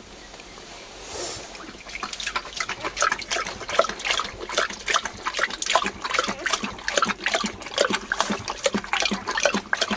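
Kangal dog lapping liquid food from a bowl: rapid, wet, splashing laps that start about two seconds in and keep up steadily.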